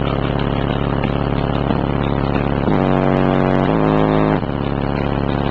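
American Pro VS-9212 12-inch subwoofer in a ported box tuned to 47 Hz, playing bass-heavy music loud, with two long held bass notes a little past the middle.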